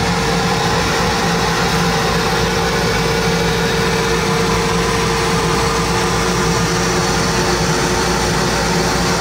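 CO2 laser cutter running as it cuts a clear acrylic sheet: a loud, steady machine hum with a constant whine over an even rushing noise.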